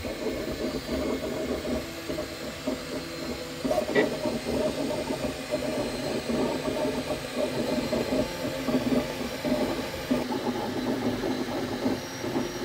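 Ultimaker 2 3D printer printing: the stepper motors hum in short, changing tones as the print head moves back and forth, over the steady hiss of its cooling fans. One brief click about four seconds in.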